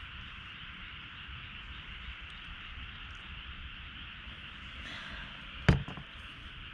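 Steady high hiss of background ambience, with one sharp knock near the end.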